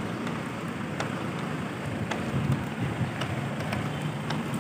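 City street background: a steady low traffic rumble under a hiss, with a few faint ticks.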